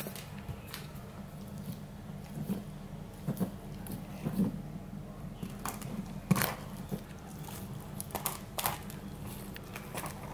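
A dog's teeth clicking and scraping against a whole egg's shell as it mouths and nibbles the egg without breaking it, in scattered short taps and clicks, over a steady low hum.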